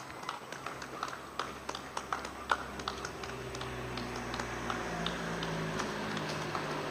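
Scattered hand claps from people applauding, irregular and thinning out after the first few seconds. From about halfway a vehicle engine hum builds up steadily.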